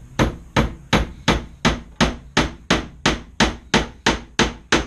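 A hammer driving a nail into a wooden dresser: steady, even blows at about three a second.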